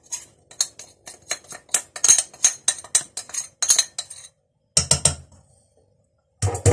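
A utensil tapping and scraping spices off a porcelain plate into an aluminium pot, a run of sharp clinks, about three or four a second, for roughly four seconds. One heavier knock follows about five seconds in.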